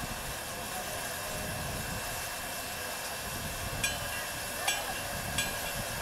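Small narrow-gauge steam locomotive hissing steadily with escaping steam. From about four seconds in, a sharp metallic click repeats roughly every three-quarters of a second.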